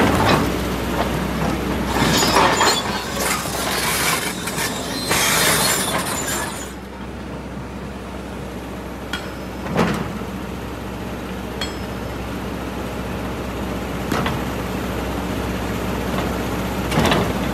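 Kobelco hydraulic excavator's diesel engine running steadily while its bucket scrapes and knocks against rock and soil, with loose stones clattering for the first several seconds. After that come a few sharp single knocks and, near the end, more clattering.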